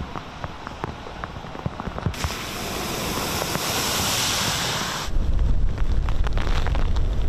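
Heavy rain pattering with scattered drop clicks; about two seconds in, a car's tyres throw up a loud, steady hiss of spray through floodwater for about three seconds, which cuts off suddenly into strong gusty wind buffeting the microphone.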